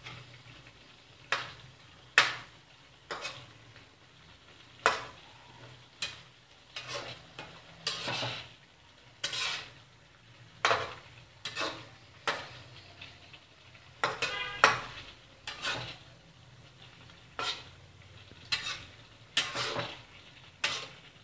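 A metal spatula scrapes and knocks against a steel wok in irregular strokes about once a second as pineapple and beef are stir-fried, over a low sizzle.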